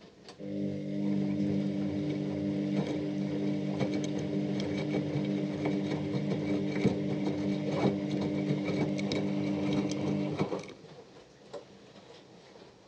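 Washing machine running its motor: a steady mechanical hum with light clicks and rattles starts about half a second in, runs for about ten seconds, then cuts off suddenly.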